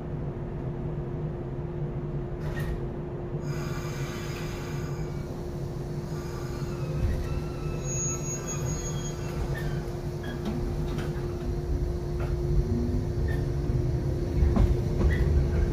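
Shinano Railway 115-series electric train car (KuMoHa 115-1067) heard from inside with the windows open: a steady hum while standing at the station, a short ringing tone about four seconds in, then the rumble of the running gear grows as the train pulls away, with the traction motors' whine rising in pitch near the end.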